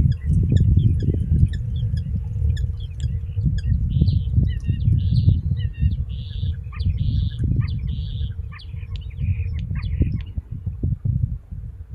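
Common starling singing: a jumble of clicks, short whistles and rasping buzzy notes, which stops about ten seconds in, over a loud low rumble.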